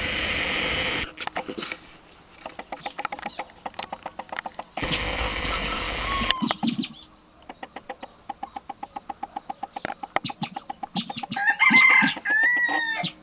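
Fowl clucking in a rapid, even run, with a louder call of several rising-and-falling notes near the end. Two spells of loud rushing noise cut in, one at the start and one in the middle.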